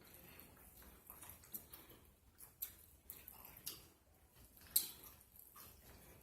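A person chewing a mouthful of burger with open-mouthed smacking: soft, irregular wet clicks about once a second, the loudest nearly five seconds in.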